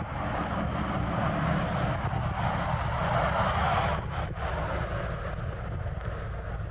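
Wind buffeting the microphone with a steady low rumble, and a rushing noise that swells and then drops off sharply about four seconds in.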